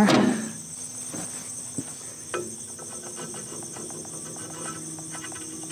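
Steady high chirping of insects in the grass, with light metallic clicks and taps from about two seconds in as a nut is handled and fitted onto the blade bolt of a rotary mower.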